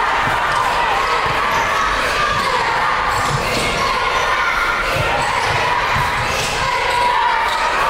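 Basketball being dribbled on a hardwood gym court, over steady crowd noise in a large hall.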